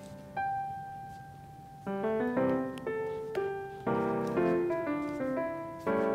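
Background piano music: a single held note about half a second in, then a gentle run of struck notes and chords from about two seconds on.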